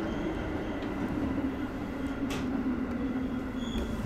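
JR 211 series electric train running along the track, heard from behind the driver's cab: a steady rumble and hum with a low tone that slowly falls in pitch, and one sharp click a little over two seconds in.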